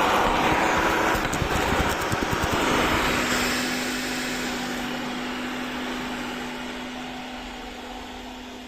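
Robot vacuum cleaner running close by, its suction motor and brushes loud with some knocks and scraping at first. It then moves away and fades, leaving a steady hum.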